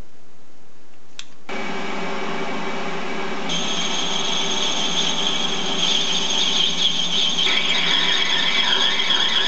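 A click, then a small metal lathe starts about a second and a half in and runs with a steady motor whine. About two seconds later the cutting tool bites into the spinning brass workpiece, adding a high-pitched scraping tone that starts to waver near the end.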